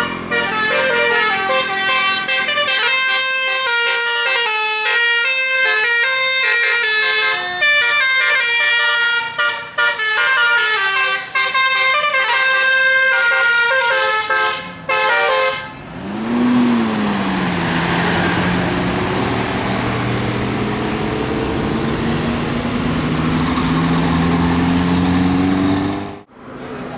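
A telolet/basuri musical horn playing a quick melody of many short notes for about fifteen seconds. Then a vehicle's engine runs for about ten seconds, its pitch rising, dipping and slowly rising again under a rushing noise, until it cuts off sharply.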